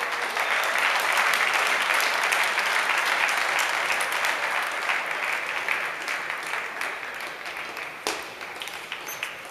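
Spectators applauding a table tennis point, starting suddenly and dying away over several seconds.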